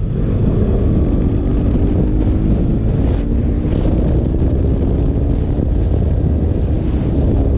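KTM RC 200's single-cylinder engine running steadily under way, with wind buffeting the rider's microphone.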